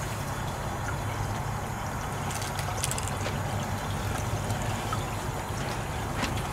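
Water running and trickling through the GOLDROP gold separator's trap and drop tube, over a steady low hum from the 12-volt bilge pump that supplies the flow.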